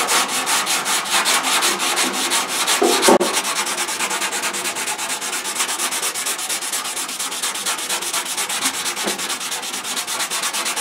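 Hand block-sanding of hardened fiberglass body filler on a steel fender with 100-grit paper on a DuraBlock: quick, even back-and-forth scraping strokes as the filler is shaped, with a brief knock about three seconds in.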